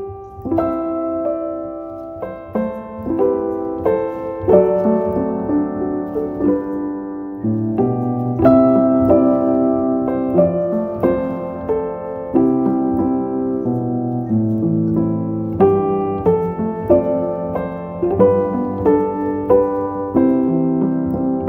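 Background piano music: a steady run of struck notes over held chords.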